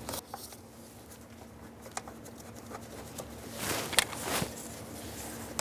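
Light handling noises of a steel door hinge and its bolts being fitted to a truck door: a few faint clicks and a brief scrape about two thirds of the way in.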